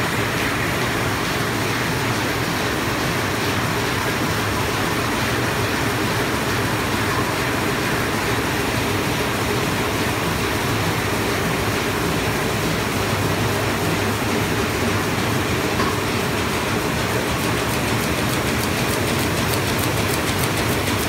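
MAN Roland 306 HOB six-colour perfecting sheetfed offset press running: a loud, steady mechanical clatter of the printing units. In the last few seconds a fast, regular clicking comes in as the sheet feeder picks sheets off the pile.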